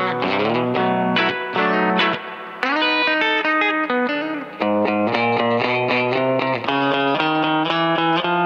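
Electric guitar, a Fender Coronado II, played through a Keeley Compressor Plus pedal into an amp: a run of picked single notes and chords, each ringing on with even, compressed sustain.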